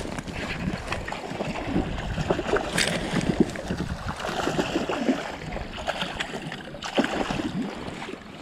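Water splashing and sloshing in a river, irregular throughout, with sharper moments about three and seven seconds in.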